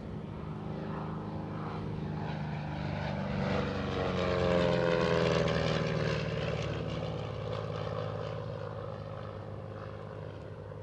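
Single-engine vintage propeller airplane flying past. The engine drone swells to its loudest about halfway through, drops in pitch as the plane passes, then fades away.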